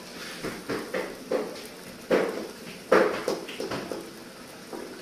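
A steel spoon stirring thick masala gravy in an iron kadai, knocking and scraping against the pan in a string of short, irregular strokes. The loudest strokes come about two and three seconds in.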